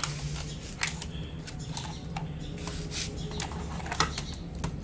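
Irregular clicks and light knocks, about a dozen, with the loudest about four seconds in, over a steady low hum.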